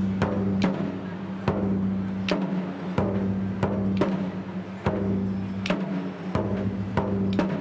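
Japanese taiko drums played by an ensemble: sharp, heavy strikes fall in a regular beat, roughly one to two a second, over a steady low hum.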